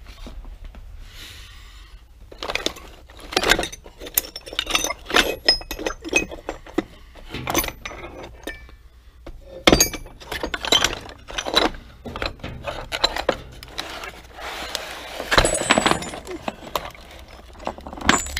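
Old metal hand tools, hammers and files, clinking and clattering against each other and the wooden box as they are rummaged through. Irregular knocks start about two seconds in, with a few louder clanks among them.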